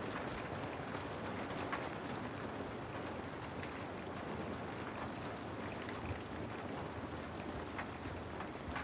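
Steady rain ambience: an even hiss of falling rain with scattered light drop ticks.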